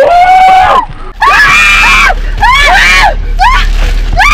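People screaming inside a car in a car wash: several high shrieks one after another, each rising and falling in pitch. They are shrieking at wash water coming in through a window that has been left open.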